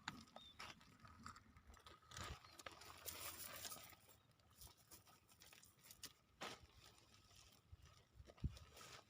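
Near silence with scattered faint clicks and crunching rustles, a little busier for a second or so about two seconds in.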